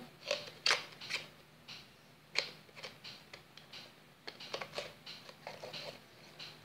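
Red plastic fork clicking and scraping against a cup of chocolate as a toddler eats from it, in irregular short clicks.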